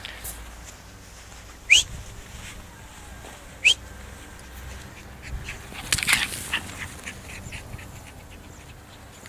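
Two dogs fighting: two short, sharp, high cries that rise in pitch, about two seconds apart, then a brief flurry of rough, scuffling noise a couple of seconds later.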